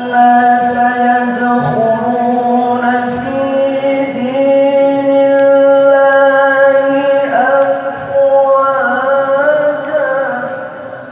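A man reciting the Qur'an in melodic tilawah style: one voice holding long, ornamented notes that slide between pitches. It fades toward the end.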